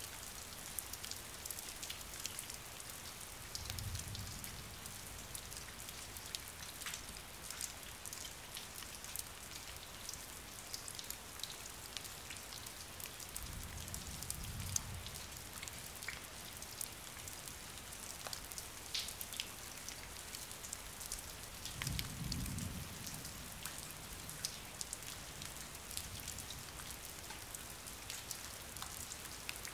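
Steady rain falling, with many separate drops ticking and pattering over a soft hiss. A brief low rumble comes three times, a few seconds in, about midway and about three-quarters through.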